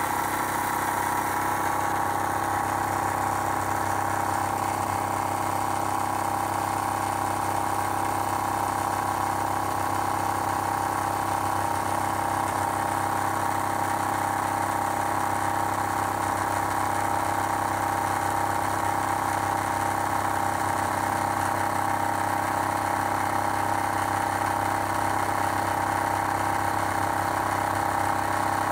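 RIX SA-3E oil-less electric scuba compressor running steadily under load, a constant hum with a strong mid-pitched tone, as it pumps air and pressure builds in the lines past the back pressure regulators toward the tank being filled.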